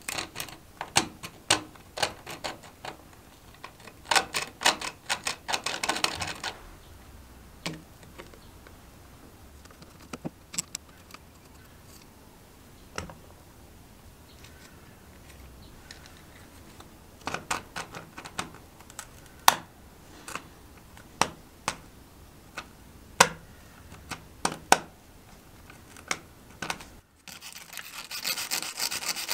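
Small screwdriver bit working the brass screws of a Rabone rosewood-and-brass spirit level's end plate: a quick run of sharp metal clicks and scrapes for about six seconds, then scattered single clicks and taps. Near the end a wire brush starts scrubbing the rosewood and brass with a steady scratchy hiss.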